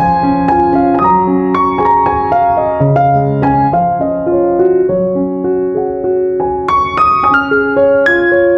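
Background piano music: a gentle melody of single notes, a new one about every half second, over lower held chords.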